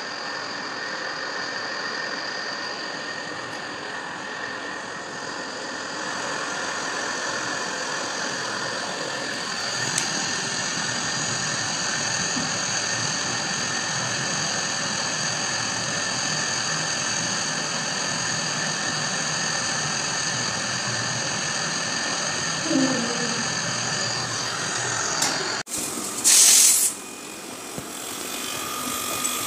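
Handheld mini gas torch on a butane canister burning with a steady hiss while brazing a leaking copper tube of a window air conditioner. Near the end the hiss cuts off, and a brief loud hiss follows.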